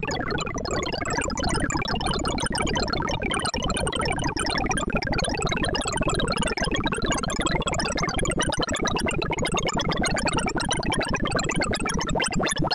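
Sorting-visualizer synthesized tones: a dense, rapid stream of short beeps at constantly changing pitches. Each pitch follows the value of an element being read or written as Timsort merges its sorted runs.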